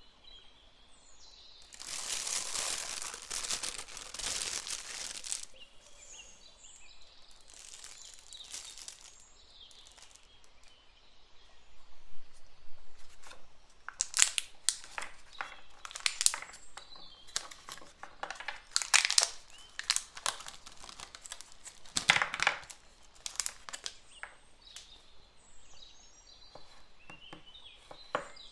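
Thin plastic crinkling and crackling as it is handled, in bursts of sharp crackles. Much of it is Toffifee sweets being pressed out of their gold plastic tray.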